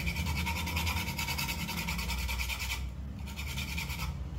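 Whole nutmeg grated on a small handheld metal grater: quick, even rasping strokes, with a short break about three seconds in.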